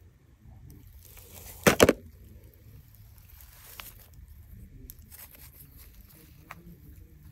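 A hand digging and crumbling through damp pink sand, with faint scattered clicks and soft scraping. A pair of loud, sharp sounds comes a little under two seconds in.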